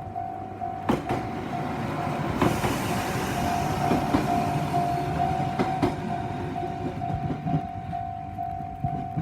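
Level-crossing warning bell ringing in quick, evenly repeated tones, about three a second, while a diesel railcar passes over the crossing. The train's rumble and wheel clacks on the rail joints grow loud about two and a half seconds in and fade after about seven and a half seconds.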